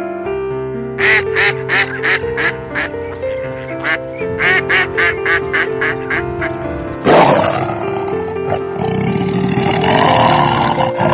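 Duck quacking over background music: a run of short quacks, several a second, for about six seconds. About seven seconds in, the quacking gives way to a harsher, noisier animal call.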